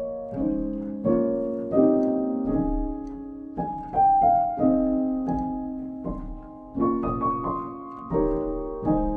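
Background music: soft solo piano playing slow chords and a simple melody, each note struck and left to ring away.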